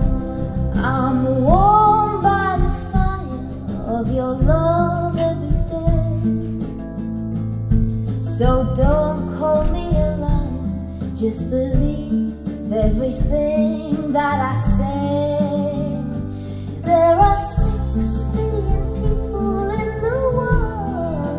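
A song with a woman singing over guitar, played back through a pair of Bowers & Wilkins Formation Duo wireless hi-fi speakers as a listening demonstration.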